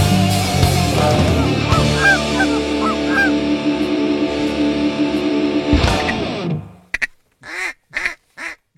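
Rock music with guitar, fading out about six and a half seconds in, followed by four short goose honks in quick succession.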